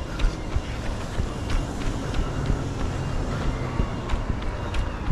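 Running footfalls thudding about every half second over steady road traffic, with wind buffeting a body-worn microphone.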